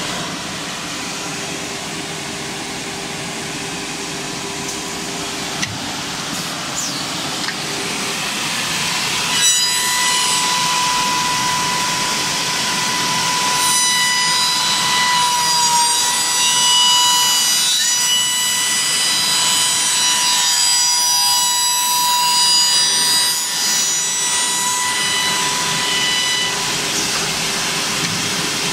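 Wellmax MX7203 wood copy shaper running: its spindle cutter shapes wooden brush blocks, a steady machine noise with the cutting of wood. About a third of the way in it grows louder and a steady high whine comes in as the cutter works the blocks.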